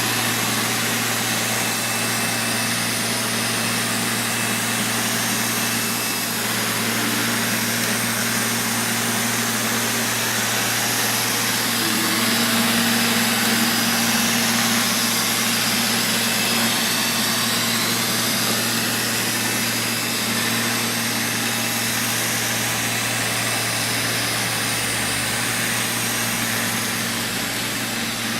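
Neato XV-12 robot vacuum cleaner running while it cleans: a steady motor whir and hiss with a low hum, swelling slightly toward the middle.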